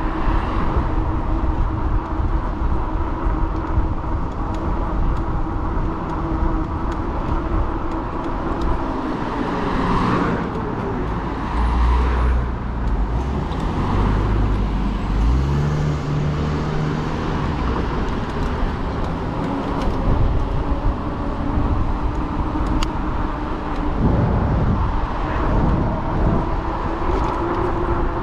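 Riding noise from a fat-tire e-bike on a road: a steady rumble of wind and tyres with a steady hum running under it. Motor vehicles pass, one about ten seconds in and another near the end, each with a whoosh whose pitch falls as it goes by.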